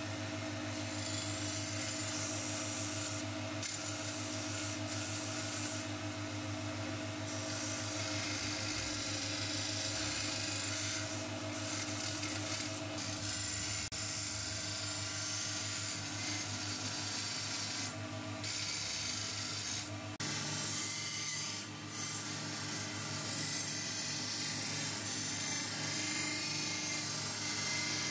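Electric belt grinder running with a steady motor hum while a steel dagger blade is ground against its abrasive belt, giving a continuous grinding hiss. The hiss breaks off for a moment several times while the motor hum carries on.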